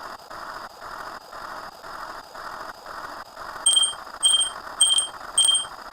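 Electronic sound effects: a pulsing hiss that repeats about twice a second, then four short high electronic beeps, evenly spaced, in the second half.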